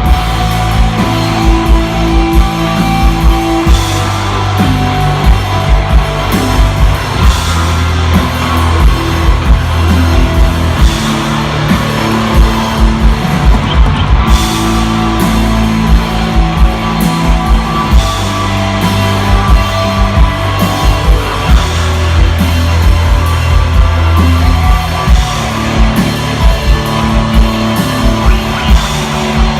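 Live rock band playing an instrumental passage: electric guitar, bass guitar and drum kit, with long held bass notes under a steady drum beat.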